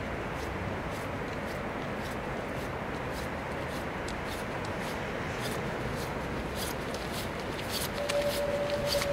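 Footsteps and the rustle of a waterproof hi-vis suit growing louder as a person walks up close, over a steady background noise. A single steady tone starts near the end.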